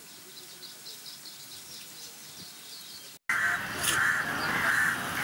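Faint outdoor ambience with light, high bird chirps. After a cut about three seconds in, several crows caw repeatedly over louder outdoor background noise.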